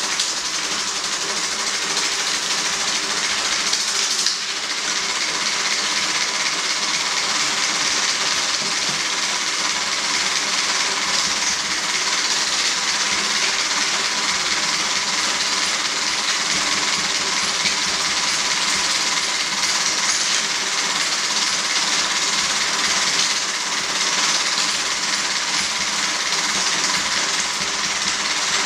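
35 mm film projector running: a steady mechanical whir under an even hiss, with a thin steady tone through it.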